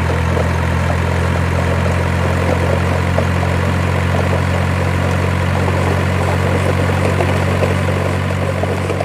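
Truck engine idling steadily with an even, low hum.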